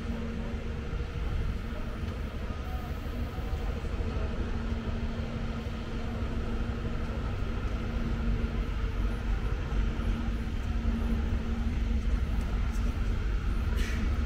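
Street traffic ambience: a steady low engine hum and rumble from vehicles on the road, with a brief click near the end.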